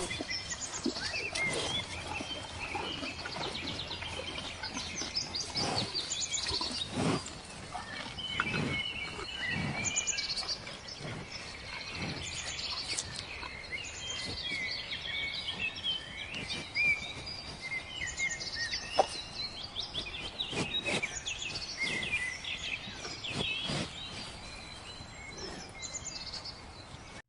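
Many small birds chirping and calling, with scattered light knocks and taps.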